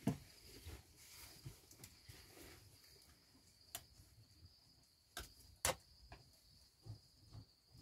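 Crickets chirping steadily in the night, with a few scattered sharp clicks and knocks close by, the loudest about two thirds of the way through.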